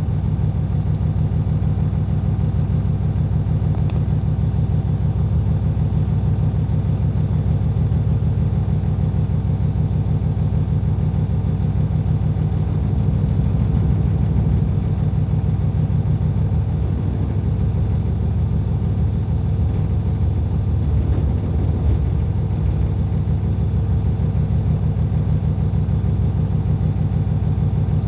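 Hino Profia heavy truck's diesel engine running steadily with a low, even rumble, its pitch shifting slightly about halfway through.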